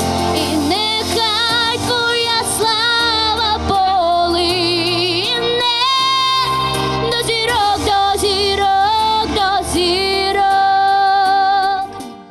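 A Ukrainian song: a woman sings a melody with vibrato over an instrumental backing. The music fades out just before the end.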